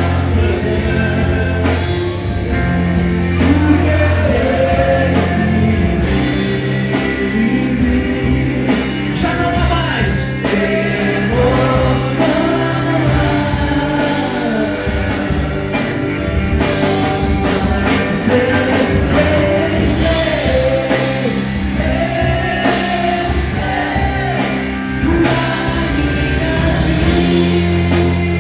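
A live worship band playing a song with singing, electric guitar, bass and drum kit at a steady beat.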